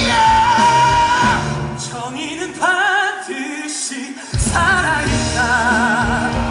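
Live musical-theatre singing with accompaniment: sung notes held with wide vibrato over the music. The bass drops out for about two seconds in the middle, then the full accompaniment comes back in.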